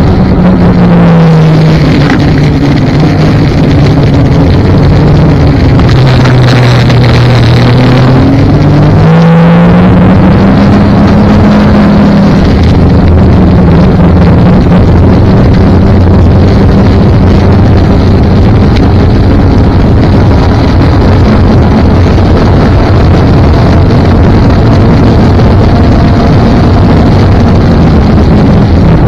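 Snowmobile engine running under way. Its pitch eases down twice in the first several seconds as the throttle comes off, climbs sharply about nine seconds in, then holds steady at cruising speed.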